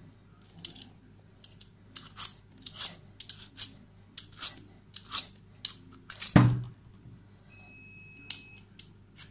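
Metal vegetable peeler scraping the hard green rind off a pumpkin in short repeated strokes, about two a second, with one louder knock about six seconds in.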